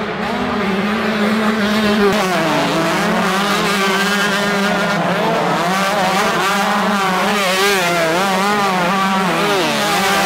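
Several 125cc two-stroke motocross bikes racing together, their engines revving up and down at different pitches as the riders work the throttle.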